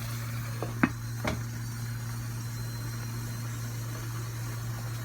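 A few light clinks of cookware, a pot lid being set on the curry pot, in the first second and a half, over a steady low hum.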